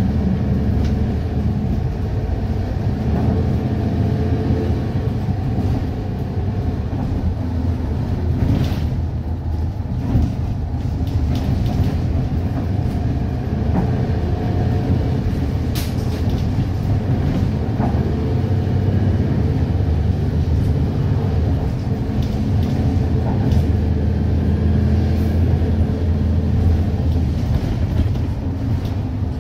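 Interior of a Mercedes-Benz Citaro O530 diesel bus with a 6-speed ZF Ecomat automatic gearbox, under way: a steady engine and drivetrain drone that rises and falls with speed, with a few sharp knocks from the body.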